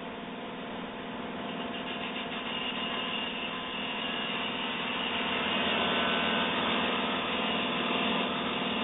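Lapidary ultrasonic drill machine running with a steady mechanical hum. About a second and a half in, a higher tone joins and the sound grows gradually louder.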